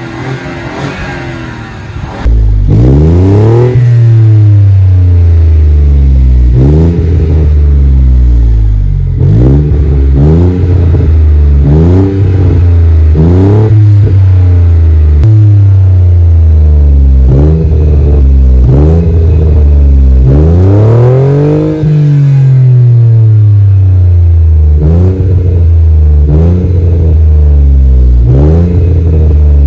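2018 BMW 1 Series engine heard through a rear-silencer-delete dual exhaust, revved over and over in short blips about two seconds in. Each blip rises and falls in pitch, with two longer, higher revs near the start and about two-thirds of the way through.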